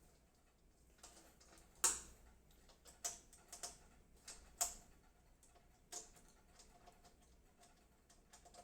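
Scattered sharp clicks and light knocks from handling a PC case and its panels, the loudest about two seconds in.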